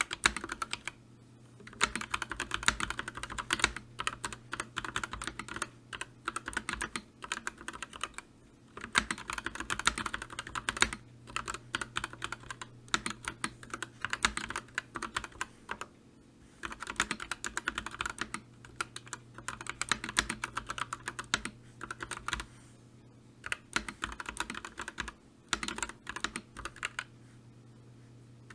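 Fast typing on a keyboard: rapid runs of key clicks lasting a few seconds each, broken by brief pauses. A faint steady hum runs underneath.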